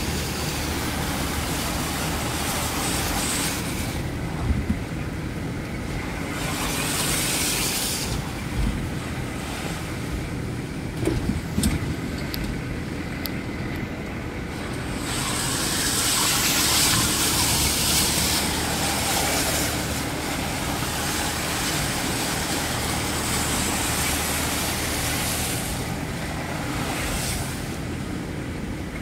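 A 4x4's engine running steadily, heard from inside the cab as it drives through floodwater. A rushing hiss of water spray from the tyres swells and fades in stretches, with a few knocks around five and eleven seconds in.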